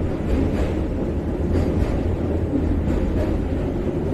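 Vande Bharat Express electric train running over a steel truss bridge, heard from the driver's cab: a steady low rumble with faint knocks now and then.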